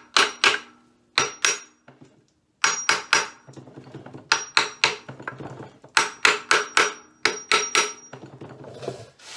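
Hammer tapping on the cast-iron rear main bearing cap of a 1928 Ford Model A engine to loosen it from the block. Sharp metallic strikes, each with a brief ring, come in quick bursts of two to four, about eighteen in all.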